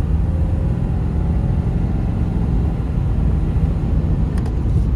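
Engine and road noise inside a pickup truck's cab while driving, a steady low drone.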